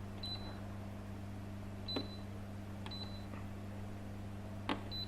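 Humidifier control panel beeping at button presses: four short, high single beeps, each with a small button click, spaced irregularly, over a steady low hum.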